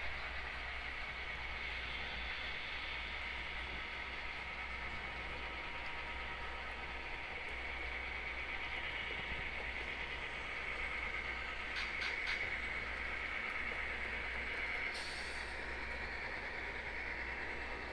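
HO scale model train pulling box cars around the layout track: a steady motor whine over the rolling wheel noise, with a brief clicking about twelve seconds in.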